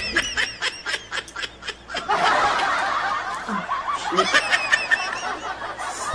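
High-pitched laughter, a quick repeated ha-ha-ha, growing denser about two seconds in.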